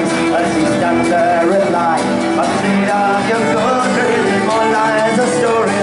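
Live acoustic folk-punk music: acoustic guitar and fiddle playing together.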